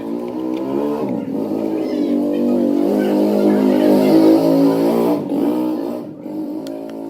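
A machine's motor running steadily with a strong hum for about seven seconds, shifting pitch slightly a couple of times, then cutting off abruptly.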